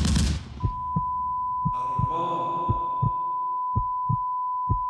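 Machine-gun fire cuts off, followed by a steady high-pitched ringing tone and a slow heartbeat thumping in pairs about once a second: a film sound effect of ringing ears and a pounding heart after a soldier is hit.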